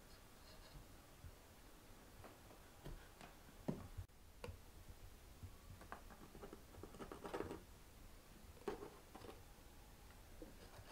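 Quiet scratching and clicking of a fluted pastry wheel cutting raw dough around a plate on a floured wooden board, with a few sharper knocks.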